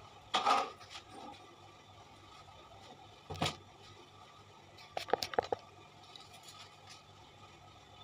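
Handling noises from swapping piping bags on a stone counter: a rustle near the start, a single knock about three and a half seconds in, and a quick run of five or six clicks about five seconds in. Under it is a faint steady hum.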